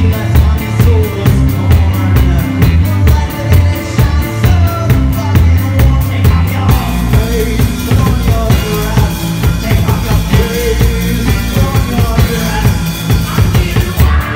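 A live rock band plays: drum kit, strummed acoustic guitar and a man singing. The drums keep a steady beat on kick and snare, then about halfway through open up into a continuous wash of cymbals.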